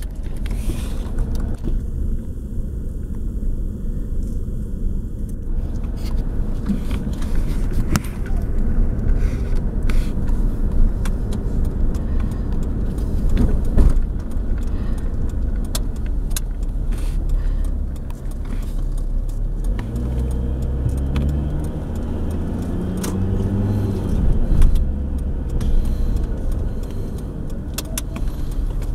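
Car being driven, heard from inside the cabin: a steady low engine and road rumble with frequent light rattles and clicks. About two-thirds of the way through, the engine note rises as the car accelerates.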